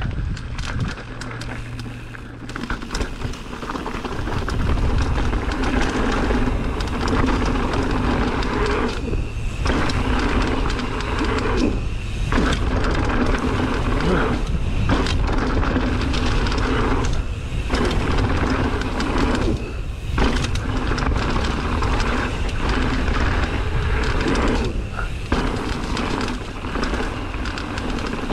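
Mountain bike ridden down a rough trail: a steady rumble and clatter of tyres and bike over rocks and roots, with wind noise, full of small knocks.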